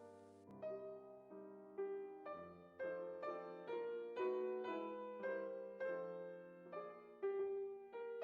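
Background music: a gentle piano melody, notes struck about twice a second, each dying away.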